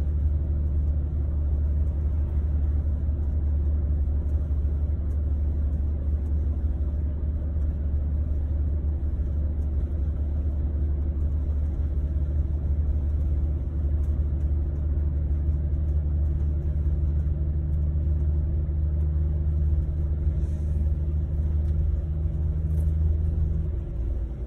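Scania double-decker coach running steadily along a highway, heard inside the cabin as a deep, even engine drone with road rumble. Near the end the drone drops in pitch and eases off.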